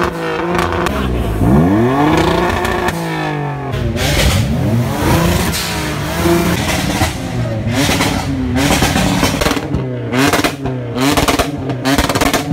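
Modified car engines revved hard at a standstill, the pitch sweeping up and falling back again and again. From about eight seconds in, the revs come as quick, short blips, two or three a second.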